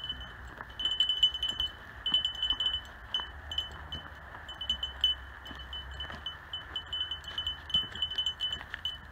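A small bell ringing out one clear high note, struck again and again in quick irregular clusters as it jingles along with the walking. Under it are a steady hiss of distant road traffic and light footsteps on dry leaves and pine needles.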